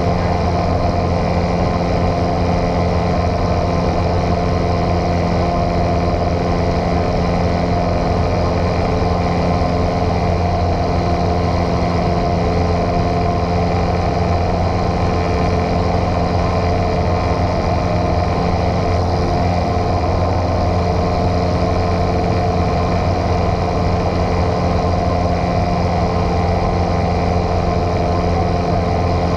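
Single-engine piston light airplane's engine and propeller running steadily in flight, heard from inside the cabin as an even drone.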